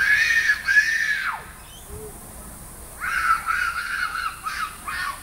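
A little girl screaming for her mum: two long high-pitched wails, then after a short pause a run of shorter, quicker screams.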